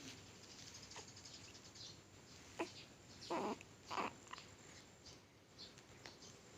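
A one-week-old baby's small sneezes: three or four short, sudden bursts close together about halfway through.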